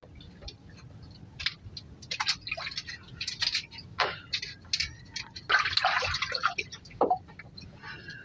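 Water dripping and splashing at the waterline, with irregular sharp clicks and crackles of shells as shellfish are worked loose by hand from a crusted post. A denser run of splashing and clatter comes around six seconds in.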